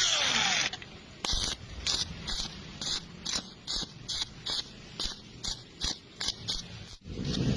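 Stick-welding arc crackling steadily, then struck in short bursts about two or three a second. This is intermittent stitch welding to fill gaps in thin 1 mm square tube without burning through. A longer, steady arc starts again near the end.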